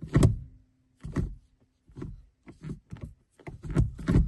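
Gear lever of a BMW E46 with a newly fitted short shifter being moved through the gates: about six short clunks and clicks, irregularly spaced.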